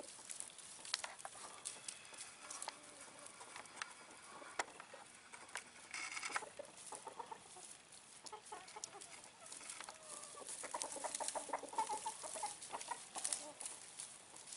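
Poultry clucking, soft scattered clucks with a busier run of calls about ten seconds in, among light clicks.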